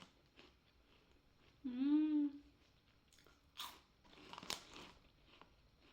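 Close-up crunching and chewing of airy shoyu corn puffs, with soft crackles throughout and two sharper crunches past the middle. About two seconds in, a short hummed "mmm" of enjoyment, rising then falling in pitch, is the loudest sound.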